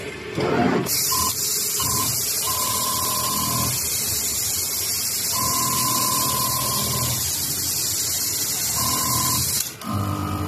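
Automatic whipping sewing machine with a JUKI overlock head running at speed as it stitches around the edge of an oval mop pad: a steady high hiss for about nine seconds that cuts off sharply near the end. A thinner whine rises and drops out several times over the hiss.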